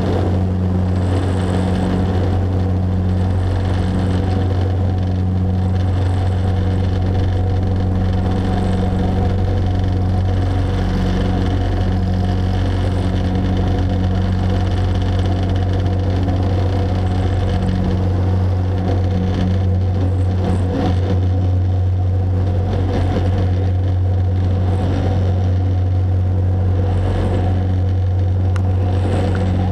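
Turboprop airliner's engines and propellers at takeoff power, heard inside the cabin during the takeoff roll and climb-out. A loud, steady drone with a strong low propeller hum and a slow beat that swells about once a second.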